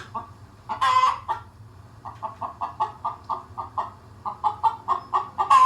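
Hen cackling: a loud squawk about a second in, then a run of quick clucks, about four a second, ending in another loud squawk near the end.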